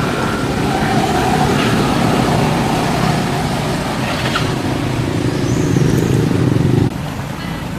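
Motor vehicle traffic running close by, a dense low rumble that builds and then cuts off suddenly about seven seconds in.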